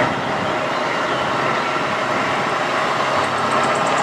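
Massey Ferguson tractor's diesel engine running steadily under load as it pulls a plough through the soil.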